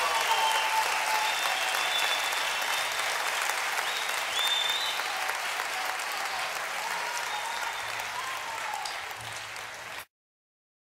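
Audience applauding, slowly dying down, then cutting off abruptly near the end.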